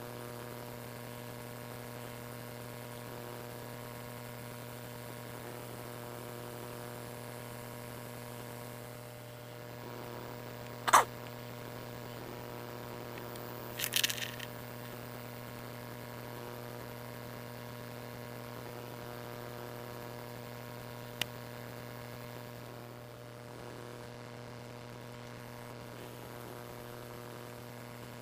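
LEGO Technic electric motors running with a steady hum as the mobile crane's boom is raised, with a sharp click about a third of the way in and a short plastic clatter soon after.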